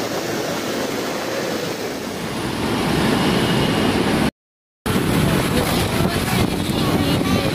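Steady road and traffic noise from riding along a busy road among motorbikes and cars. It grows a little louder about two and a half seconds in and cuts out completely for about half a second a little over four seconds in.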